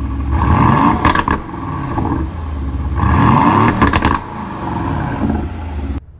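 2019 Aston Martin DB11's 4-litre twin-turbocharged V8, standing still with its exhaust valves open, revved twice. Each blip is followed by crackles and pops from the exhaust as the revs fall, and it settles back to idle in between. The engine sound cuts off suddenly near the end.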